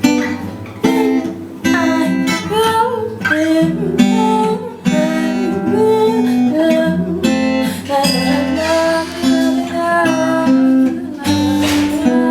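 Acoustic guitar playing, a run of plucked notes changing about every half second.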